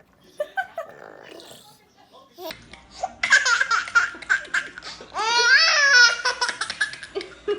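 High-pitched laughter, like a young child's belly laugh, bursting out about three seconds in in quick pulses and peaking in a long, high laugh just past the middle.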